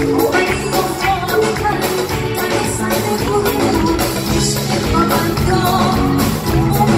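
A female singer singing into a microphone with a live band, with hand drums keeping a steady beat under the song.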